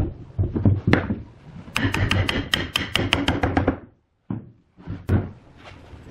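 Hammering on wood: a few heavy knocks, then a fast run of sharp strikes at about seven a second lasting about two seconds, then two more single knocks after a short break.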